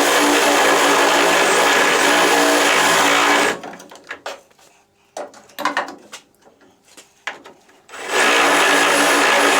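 Right-angle drill running, drilling out spot welds in car body sheet metal. It stops about three and a half seconds in, a few light knocks and clicks follow, and the drill starts again near the end.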